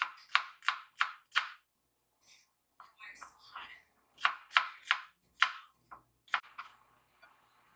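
Knife chopping on a cutting board: a quick run of five chops about three a second, a short stretch of softer handling sounds, then another run of about six chops.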